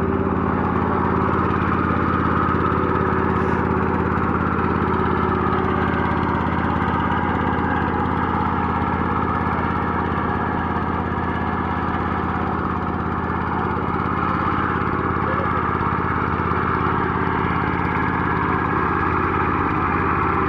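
An engine running steadily at a constant speed, its even drone unchanged throughout.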